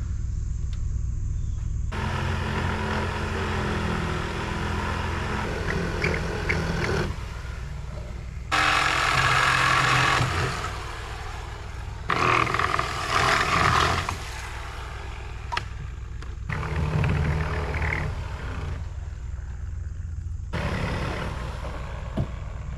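Reciprocating saw cutting through nailed wooden framing in five bursts of a few seconds each, over a steady low engine rumble.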